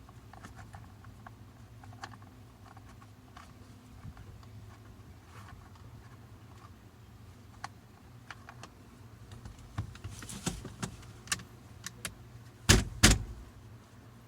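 Metal tool clinks and clicks of an Allen key working the steering wheel's centre bolt loose, with a run of knocks toward the end and two loud knocks close together near the end.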